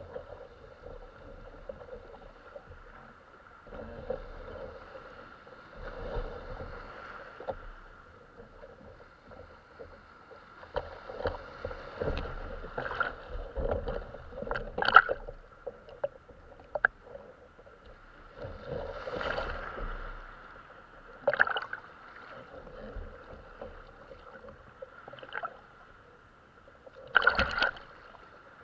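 Kayak on the water: water gurgling and splashing around the hull, with scattered sharp knocks.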